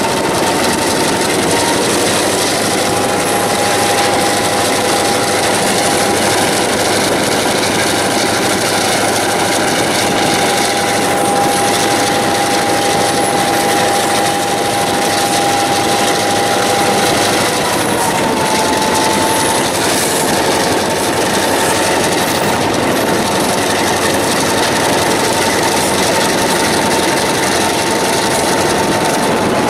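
EMD GP9 diesel-electric locomotive's 16-cylinder 567 engine running under load as it moves its freight train along the track. It gives a steady drone with a high whine that drops in pitch a couple of seconds in and rises back about two-thirds of the way through.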